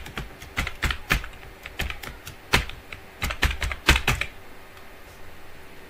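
Typing on a computer keyboard: a run of irregular keystrokes that stops about four seconds in.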